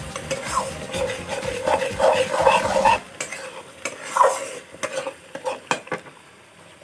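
A spatula stirring and scraping curry gravy in a metal kadai over a wood fire, with a sizzle under it. The scraping is loudest about two to three seconds in, drops just after three seconds, and gives way to a few light clicks of the spatula against the pan.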